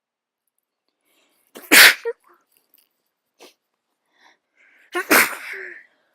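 A person sneezing twice, about three seconds apart, with a cold and an itchy nose.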